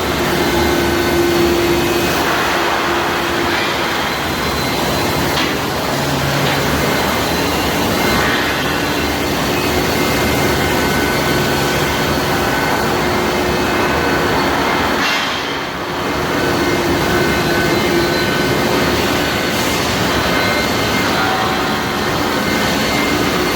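Steady industrial machinery noise from a steel-pipe induction hardening and tempering line: a loud, even rush with a few faint steady tones coming and going over it, dipping briefly about two-thirds of the way through.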